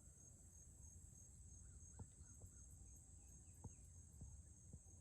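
Near silence with a faint, steady high-pitched insect trill, like crickets, and a few soft ticks.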